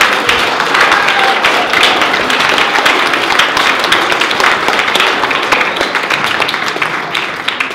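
Theatre audience applauding: many hands clapping, loud and sustained, easing off slightly near the end.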